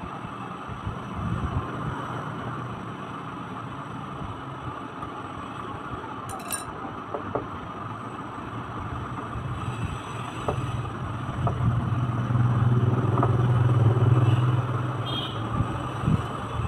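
A low motor rumble with a steady hum that swells for a few seconds near the end. Over it come a few faint clicks and taps as a screwdriver works and the plastic push-handle parts of a toy ride-on car are fitted together.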